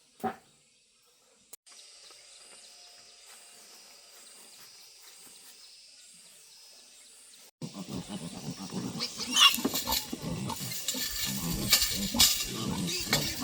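A group of farm animals calling noisily, a dense, irregular racket that starts suddenly about halfway through. Before it there is only a faint steady hum.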